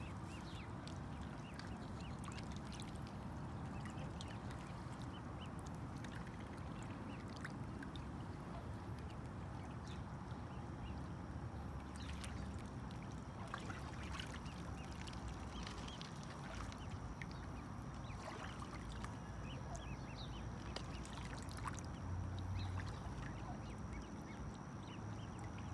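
Water birds quacking and calling again and again over a steady rushing background.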